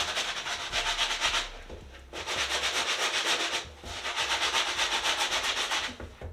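Stiff brush scrubbing a leather Nike Air Force 1 sneaker with soapy water in fast back-and-forth strokes, in three bursts with short pauses between them.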